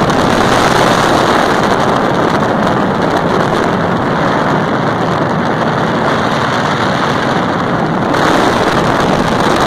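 Loud, steady wind rush over a phone microphone on a moving motorcycle, with the motorcycle's engine running underneath.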